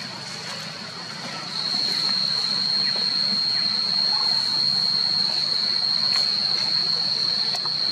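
Cicadas droning: a steady, high-pitched whine held at one pitch, which grows clearly louder about one and a half seconds in.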